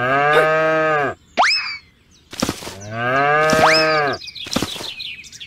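A cow mooing twice, each moo about a second long. A quick rising cartoon boing sound effect comes after the first moo and again during the second.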